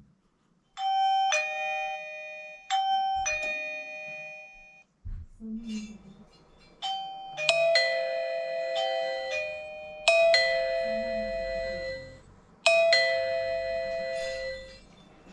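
eufy video doorbell kit ringing after its button is pressed. Two quick two-note ding-dong chimes sound first, and then a longer chime tune of several bell-like notes rings on and off, each note ringing out.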